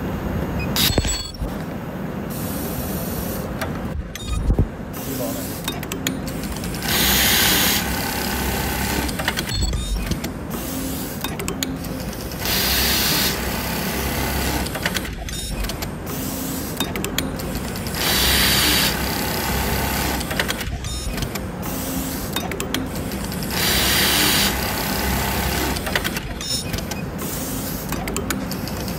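Hikari automatic elastic-band joining sewing machine running through repeated cycles: a steady mechanical running noise, with a hiss of compressed air lasting about a second roughly every five and a half seconds and sharp clicks in between.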